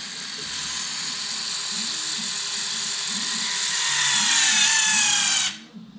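Two Tesla electronic parking brake caliper motors running together with a high whine that sinks slowly in pitch and grows louder as the calipers clamp. The motors cut off suddenly about five and a half seconds in, when they reach the stall current set in the controller.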